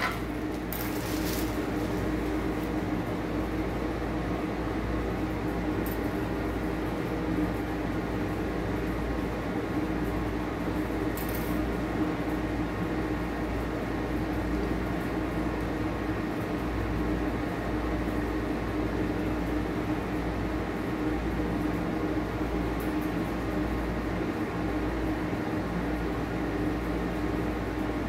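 Steady mechanical hum from a running household appliance such as a fan or air conditioner, with a low rumble under it and a few faint clicks.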